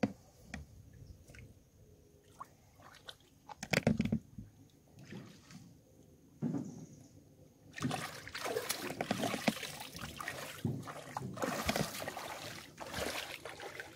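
Feet splashing and sloshing through shallow river water, setting in a little past halfway and continuing in uneven surges. Before it there are a few scattered knocks and handling noises.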